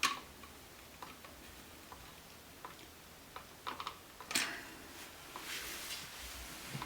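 Scattered faint clicks and small metallic ticks of hand work on an electrical outlet as a ground wire is fastened under its terminal screw, with one sharper click about four and a half seconds in.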